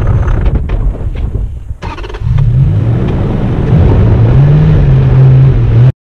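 4x4 engine pulling up a rocky dirt trail, its pitch rising in steps as it revs, with a brief drop in level a little under two seconds in. It cuts off suddenly just before the end.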